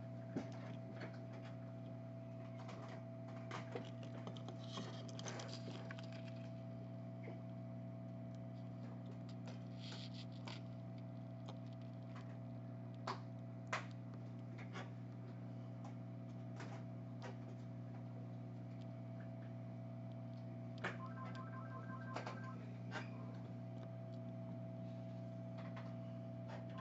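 Steady electrical hum with a faint higher whine, under scattered small clicks and taps of tools on a circuit board during desoldering. Near the end, a short run of rapid electronic pips, twice in quick succession.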